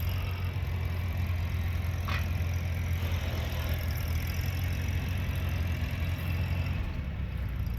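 An engine idling steadily, a continuous low hum.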